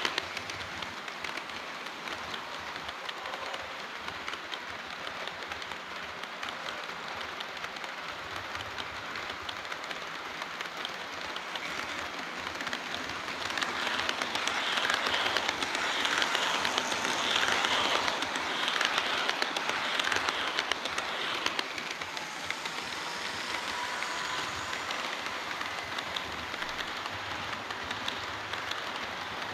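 HO-scale model train running on the layout track: a dense, fast clatter of wheels over rail joints. It grows louder about halfway through as the train comes close, then eases off.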